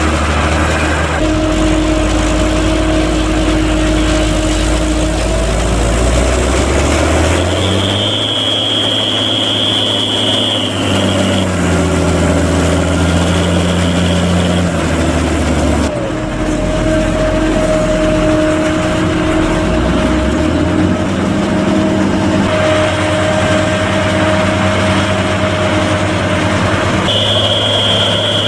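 Fendt Favorit 824 tractor's diesel engine working under changing load as it pushes silage with a front maize leveller, its pitch rising and falling as it drives up the clamp and backs off. A high steady whine comes in for a few seconds twice.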